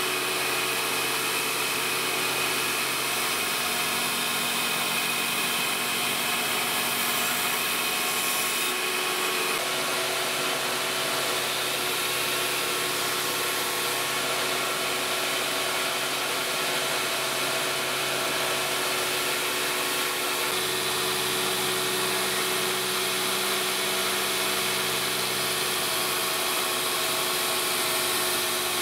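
Belt grinder running steadily while a steel knife blank is ground against its abrasive belt: a continuous motor-and-belt whir over a hiss. Its tone shifts slightly twice.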